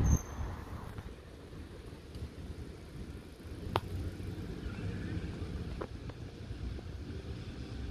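Low, steady rumble of street traffic with a transit bus approaching from far down the road, growing a little louder in the second half. A sharp click about four seconds in.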